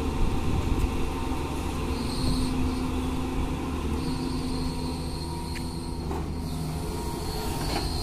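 Doosan crawler excavator's diesel engine running steadily under load, with a high whine of its hydraulics coming and going as the boom lifts the bucket.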